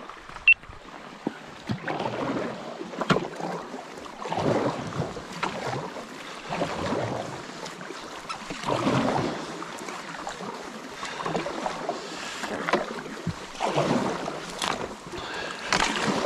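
Kayak paddle strokes in a shallow creek: the blade splashing and pulling through the water, then dripping, a stroke about every two seconds. There are a few sharp knocks in between.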